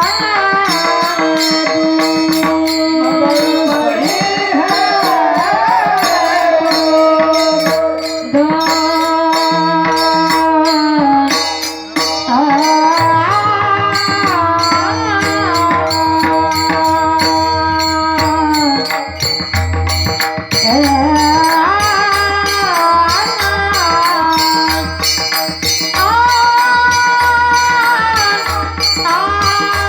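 A woman singing long, held notes with sliding ornaments, over a hand drum keeping a steady rhythm.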